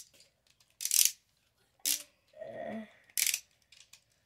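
Three short raspy plastic rasps about a second apart, from a Beyblade top and its launcher being handled and fitted together.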